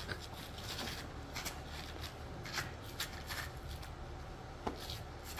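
Faint, irregular scuffs and scrapes of a person shuffling and pushing up off a gritty dirt road, about a dozen short scratchy sounds over a low steady background.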